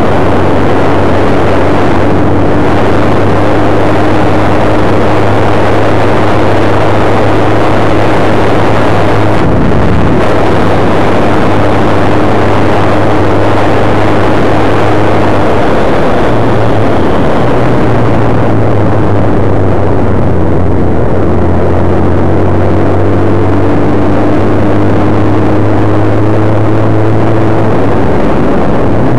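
Suzuki GSX-R 1100's inline-four engine running at a steady cruise under heavy wind noise on the microphone. The engine's pitch shifts a little about two-thirds of the way through and again near the end.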